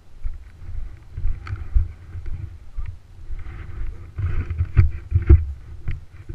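Gusty wind rumbling on the camera microphone, with scattered knocks and clicks. It gets louder and denser about four to five and a half seconds in.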